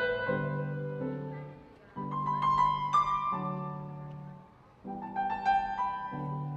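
Background piano music: slow phrases of held notes and chords, fading out twice, about two seconds in and again past four seconds, before the next phrase starts.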